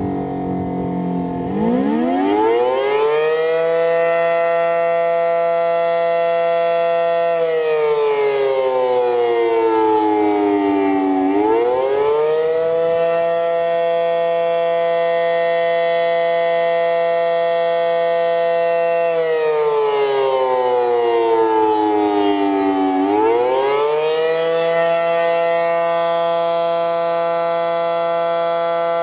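Federal Signal SD-10 outdoor warning siren sounding a wail, the attack signal. Its pitch climbs to full tone, holds for about six seconds, then slides down over about four seconds and climbs again, twice over.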